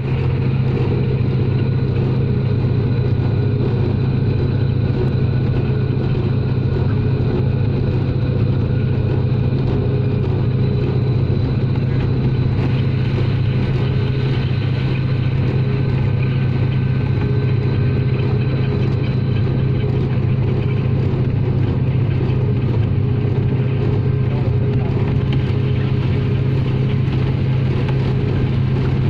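Diesel-electric locomotive running steadily under way: an even, loud engine drone with several steady whining tones above it.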